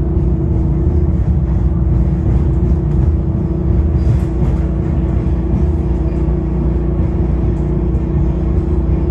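MARTA rapid-transit train running: a loud, steady rumble with a constant low hum.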